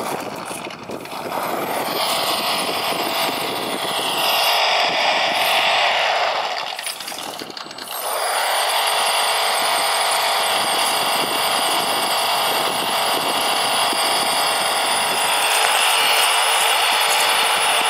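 PRC QX-4 mini rock crawler's onboard truck-engine sound, revving up and easing off with the throttle as it crawls over rocks. The sound dips briefly about seven seconds in, then picks back up.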